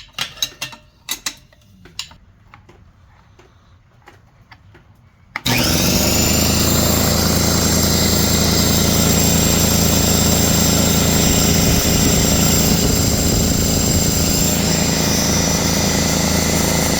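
Metal tools clinking on fittings, then about five seconds in the 33-gallon Craftsman air compressor's electric motor and pump start abruptly and run loud and steady with a high whine, on a test run after a new check valve has been fitted.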